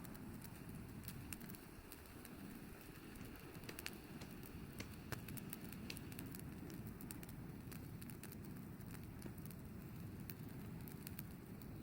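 Wood campfire burning, crackling with many small irregular pops over a steady low rumble.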